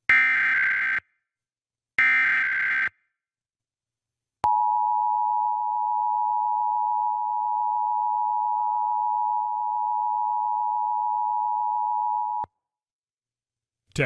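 Emergency Alert System required monthly test signal. First come the last two of the three SAME header data bursts, each a buzzing digital burst about a second long, a second apart. After a short gap comes the EAS two-tone attention signal (853 and 960 Hz sounded together), held steady for about eight seconds before it cuts off.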